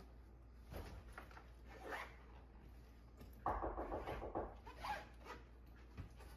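A bag's zipper being pulled shut in one quick, rasping run of about a second, a little after the midpoint, with soft rustling of items being packed before and after it.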